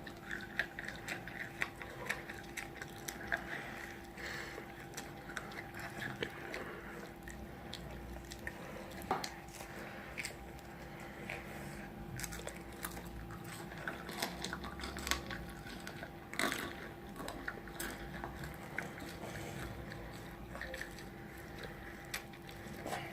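Close-up biting and chewing of crunchy fried food, with irregular crisp crackles and crunches. A faint steady hum runs underneath.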